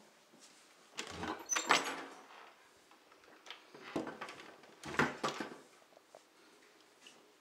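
A wooden interior panel door being handled, opened and pushed: two bursts of latch clicks and knocks, one about a second in and another about four to five seconds in.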